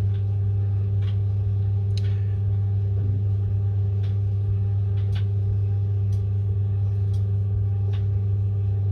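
Steady low electrical hum, with faint light clicks every second or so as the impact wrench's gear parts are handled.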